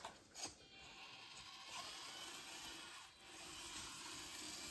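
Mini RC crawler's small electric motor and gears whirring faintly as it drives, a little stronger from about a second and a half in.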